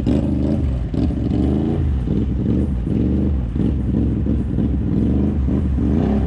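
Side-by-side off-road vehicle's engine revving up and down repeatedly as the throttle is worked on and off.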